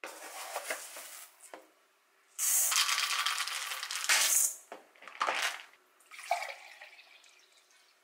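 Dry rice grains poured from a plastic rice dispenser into a measuring cup and a stainless steel bowl: a loud rattling hiss lasting about two seconds. Shorter splashes and swishes of the rice being rinsed follow, then a faint trickle as the cloudy rice-washing water is poured into a glass measuring jug.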